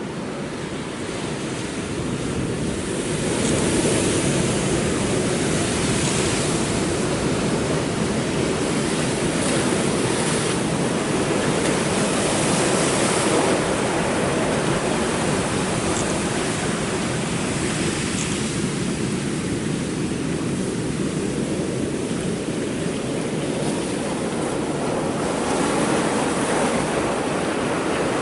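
Large ocean waves breaking and crashing on rocky shoreline, a continuous loud surf wash that swells about three seconds in, with some wind on the microphone.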